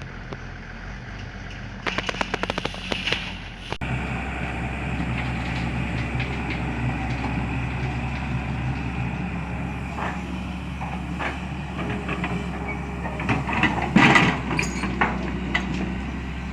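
Sany SY215 excavator's diesel engine running steadily, getting louder about four seconds in. A run of rapid clattering comes before that, and scattered knocks and scrapes of the machine working come through the second half, loudest about fourteen seconds in.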